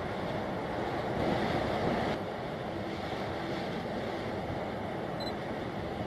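Strong wind buffeting the microphone over choppy harbour water: a steady rushing noise that swells about a second in and eases a little just after two seconds.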